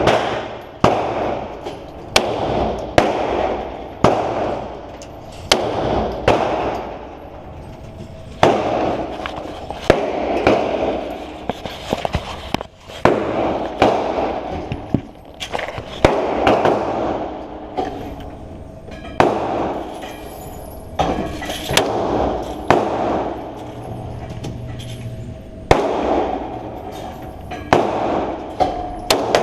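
Hi-Point C9 9mm pistol fired shot after shot, about one every second or two with a few longer pauses. Each shot is a sharp crack with a short ringing tail.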